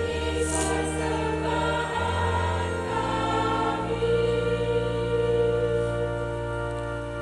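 Church choir singing a hymn in parts with keyboard organ accompaniment: long held chords over sustained bass notes that change every second or so.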